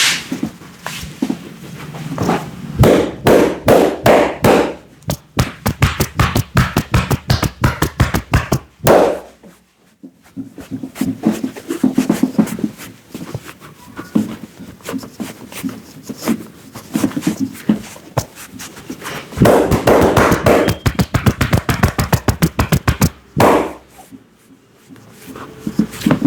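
A barber's hands drumming a percussive head massage: quick runs of tapping and chopping strikes, several a second, broken by short pauses.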